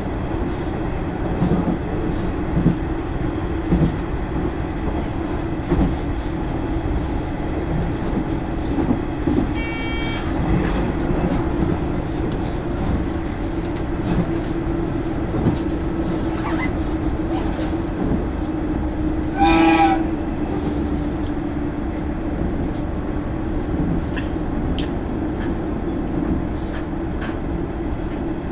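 Interior of a diesel railcar running steadily along the line: a continuous engine and wheel hum with occasional knocks over rail joints. A short, loud horn blast comes about twenty seconds in.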